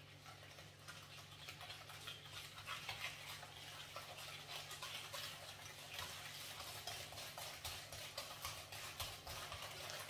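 Wire balloon whisk beating eggs, sugar and softened butter in a ceramic bowl: a steady, rapid clicking and scraping of the wires against the bowl.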